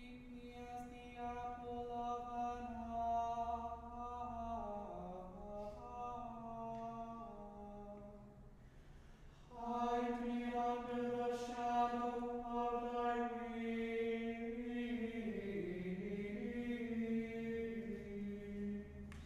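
Small men's choir chanting Compline plainchant in unison: two phrases sung mostly on one reciting note, each falling at its cadence, with a short breath pause between them.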